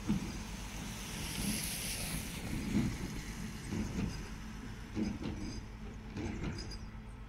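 Faun Variopress rear-loader garbage truck running at the kerb while its lifter holds a blue paper bin tipped over the hopper, the bin knocking irregularly as it is shaken empty.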